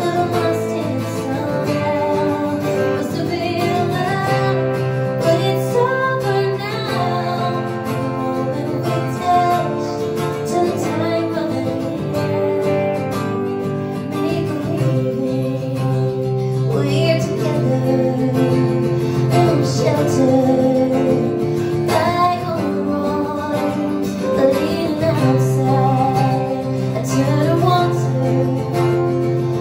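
Live acoustic song: a woman singing over two strummed acoustic guitars.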